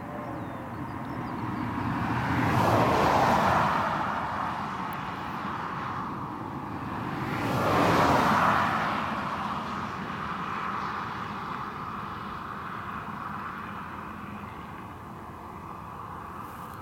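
Two cars passing close by on the road, their tyre and engine noise swelling and fading away, about three and eight seconds in, over a steady background noise.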